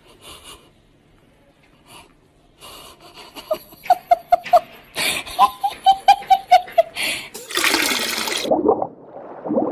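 A person laughing in a rapid string of short, even-pitched bursts, followed near the end by a loud whooshing transition sound effect.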